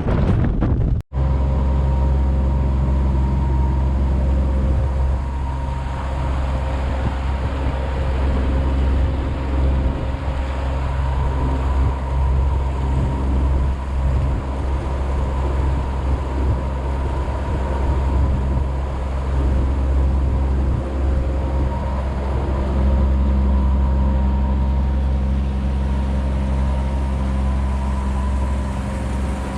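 Boat engine running steadily under way, a constant low drone heard from on board.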